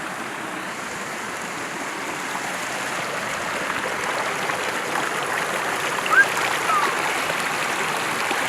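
Mountain creek flowing: a steady rush of water that grows slowly louder, with two brief chirps about six seconds in.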